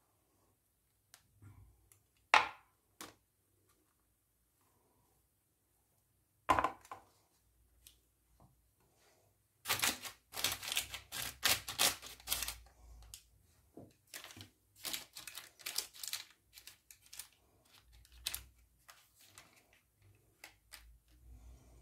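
Metal baking pan holding sponge-cake batter knocked twice on a tiled floor, then a quick run of light taps and clicks about halfway through, thinning to scattered clicks near the end.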